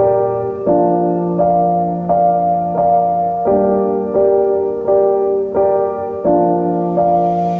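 Background music: a keyboard melody of evenly paced notes, changing roughly every three-quarters of a second.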